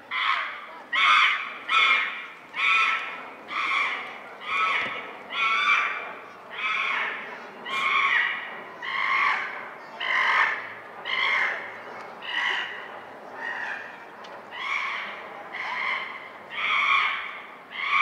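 An animal's harsh call repeated over and over at a steady pace, about one call every three-quarters of a second, each call falling slightly in pitch.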